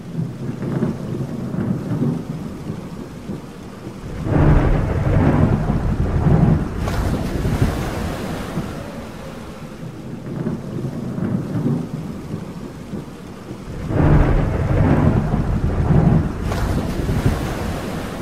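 Thunderstorm over rain: a steady rain hiss with two long rolls of thunder, one starting about four seconds in and one about fourteen seconds in, each with a sharper crack a couple of seconds after it starts.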